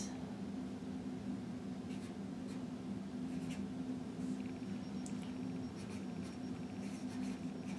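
Pen tip scratching across paper in short, irregular strokes as words are hand-lettered, over a steady low hum.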